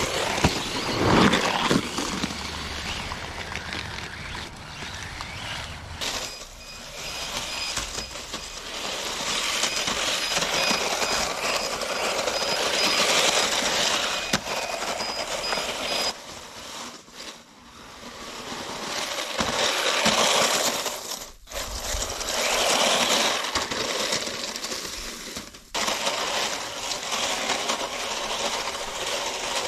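3D-printed RC snow tanks with brushless motors driving and jumping on snow: plastic tracks churning and clattering, a high motor whine, and knocks as they land. The sound changes abruptly several times, dropping out briefly around the middle and again later.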